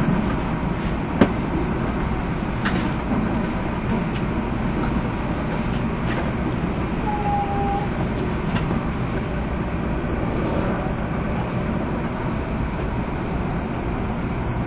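Taiwan High Speed Rail 700T train running through a tunnel, heard from inside the passenger car as a steady rumble. There is a sharp click about a second in, a few fainter ticks, and a brief high tone about seven seconds in.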